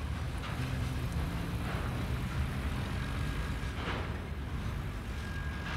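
Freight train wagons rolling away along the track: a steady low rumble, with a few short, sharper rail noises every second or two.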